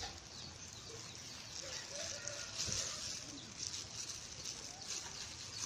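Faint outdoor ambience: a steady high-pitched hiss with a few faint, brief chirps.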